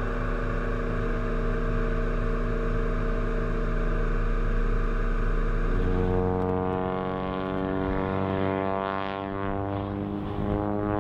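Piaggio P.149D trainer's piston engine running steadily at high power, heard from on board the aircraft. From about six seconds in the sound changes to a group of these planes flying over in formation, their engine note slowly falling in pitch as they pass.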